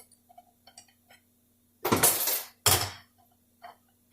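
Metal automatic-transmission parts clinking and clanking as they are handled and set down: a few light clicks, then two louder clanks about two and three seconds in, and a small click near the end.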